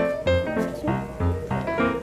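Background music led by piano or keyboard, with chords struck in a steady rhythm.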